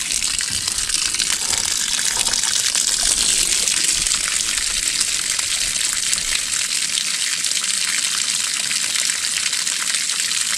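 Water gushing steadily out of a small boat's hull through the open drain-bung hole, the boat tilted on its trailer: water taken on while running through splashy water, which the owners put down to spray thrown up by the transducer.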